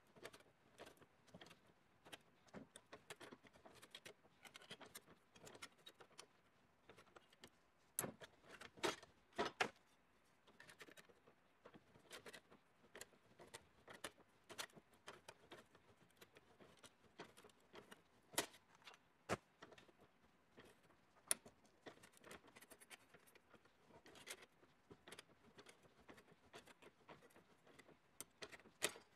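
Bench-mounted lever hand shear biting through sheet steel while a curve is cut: a faint, irregular series of short clicks and snips, one cut after another, with a few louder snaps about a third of the way in.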